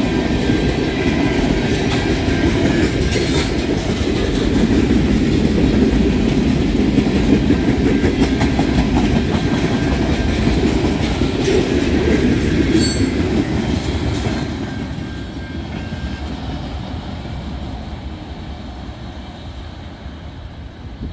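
Freight train's tank cars and boxcars rolling past at speed, steel wheels clattering over the rail joints in a steady rumble. About 14 seconds in the last car goes by and the sound fades away down the line.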